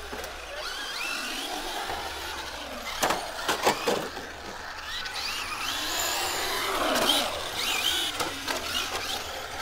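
Electric RC cars running on the concrete, their motors whining up and down in pitch with the throttle. A cluster of sharp knocks comes about three seconds in, and more near seven seconds.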